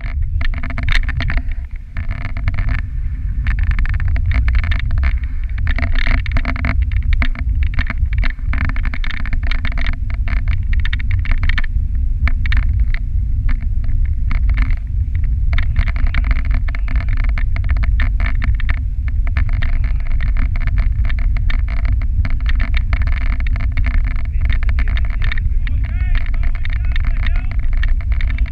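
Steady low rumble and wind buffeting on the microphone of a sled moving fast along a packed snow trail, with frequent short knocks and rattles as it goes over bumps.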